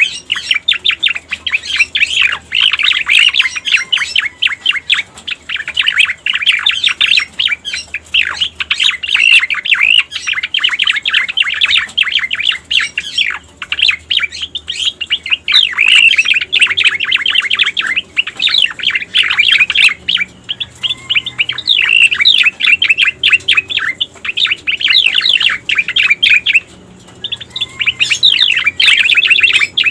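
Cica koreng (cucak koreng) song: a fast, unbroken stream of chirps and trills, pausing briefly near the end. It is a recording used as a trapping lure and as a master song for teaching caged birds.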